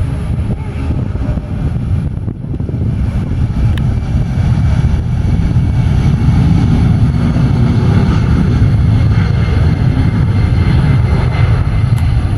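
Boeing 757-200's twin jet engines at takeoff thrust during the takeoff roll and lift-off: a loud, low rumble that grows over the first few seconds, then holds steady.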